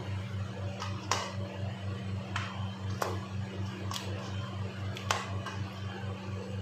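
A hand squishing chicken pieces through thick yogurt marinade in a steel bowl: several short wet squelches and light taps, scattered irregularly, over a steady low hum.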